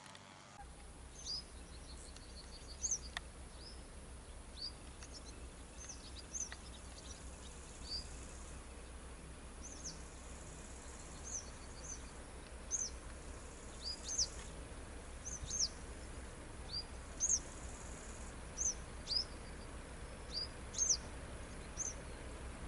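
Small songbirds chirping: short, high chirps that fall in pitch, repeated every second or so, over a faint low steady rumble.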